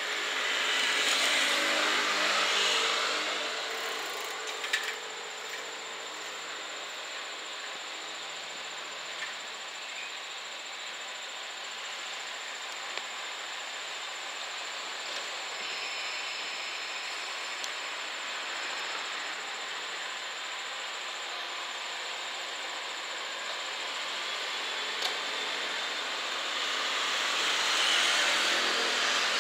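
KiHa 40-series diesel railcar idling while it stands at the platform, a steady engine hum under a hiss. It swells louder for a couple of seconds about a second in and again near the end, with a few faint clicks.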